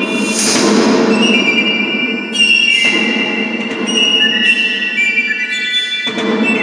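Live contemporary chamber music: several long held high tones over a dense, noisy lower layer, the held tones shifting to new pitches about two seconds in and again near the end.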